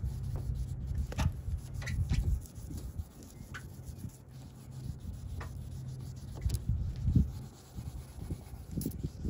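Pad rubbing on a plastic headlight lens by hand, an uneven scrubbing with scattered small clicks over a steady low hum.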